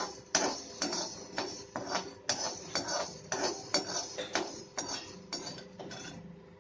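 Metal spatula scraping and knocking against a metal kadai, with peppercorns rattling across the pan as they are stirred while dry-roasting. About two strokes a second, growing softer near the end.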